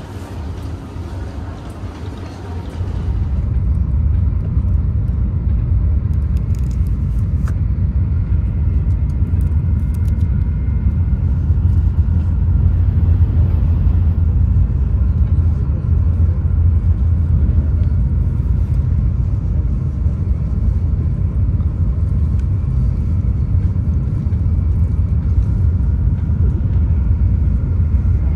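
Steady low rumble of a Shinkansen bullet train running, heard inside the passenger cabin; it grows louder about three seconds in and then holds steady.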